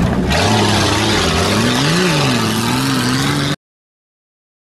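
Jeep Cherokee off-road racer's engine running at a steady pitch, revving up briefly about two seconds in and falling back, over a steady hiss. The sound cuts off abruptly about three and a half seconds in.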